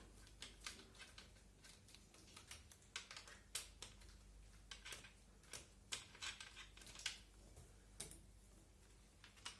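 Faint, irregular small clicks and ticks of a Phillips screwdriver turning screws out of an airsoft MP5's body, with small parts being handled.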